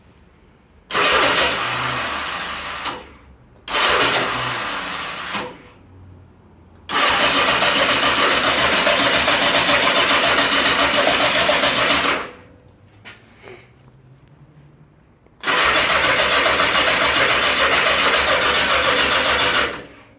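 1982 Yamaha XJ650 inline-four being cranked on its electric starter in four bursts, the longest about five seconds, the first two fading, without the engine catching. It cranks but won't start, although the carbs are clean, the floats are set and there is spark on all four plugs.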